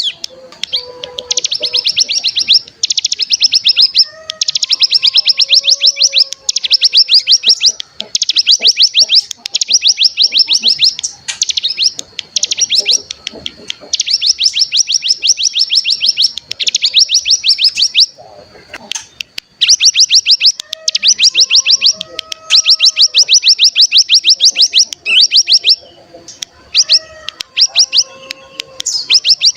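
Ciblek gunung (a prinia) singing its rapid, buzzing trill ('ngebren'), high-pitched bursts of one to two seconds each, repeated with short breaks. Fainter, lower whistled notes come and go beneath it.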